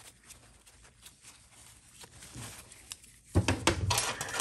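Faint rustling of a shop towel wiping a transmission governor, then, from about three and a half seconds in, a run of sharp metal clinks and rattling as the steel governor is handled against a steel bushing driver.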